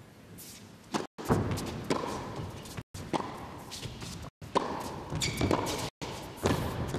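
Tennis rally: racquets striking the ball back and forth about every second to second and a half, with the ball bouncing on the court and a brief squeak a little after five seconds in. The recording cuts out for an instant every second and a half or so.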